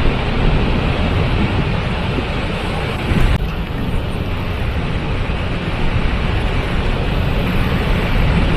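Waterfall: a steady, loud rush of falling water. The hiss changes slightly about three seconds in.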